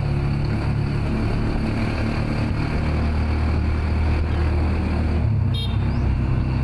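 Motor vehicle engine running steadily while riding along, its note shifting about two and a half and five seconds in. A short run of clicks about five and a half seconds in.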